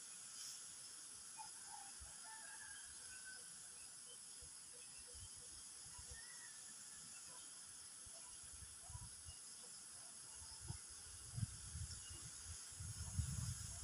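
Faint steady high-pitched hiss. Near the end come soft low knocks and rubbing as the armature and soldering iron are handled on the wooden bench.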